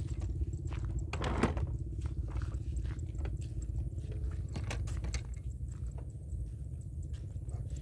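Footsteps crunching on a gravel path, irregular short crunches over a steady low rumble, one louder crunch about a second and a half in.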